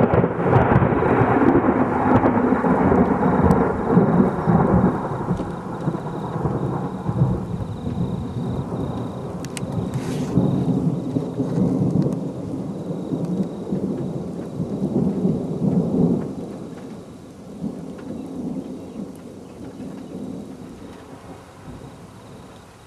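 Thunder: a rolling rumble that starts suddenly and stays loud for about sixteen seconds, then slowly fades away.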